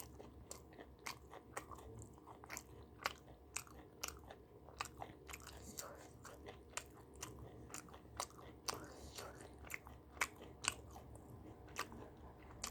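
A person chewing and biting food close to the microphone: irregular crisp crunches and mouth clicks, several a second.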